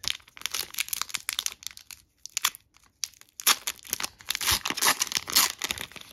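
Foil wrapper of a Pokémon Evolutions booster pack being torn open and crinkled: a run of crackling, with a short pause about halfway through.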